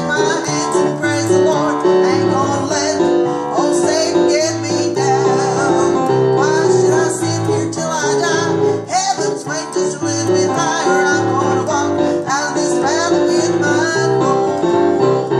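A woman singing while accompanying herself on a digital piano, with held chords over a steady bass line and a wavering sung melody above.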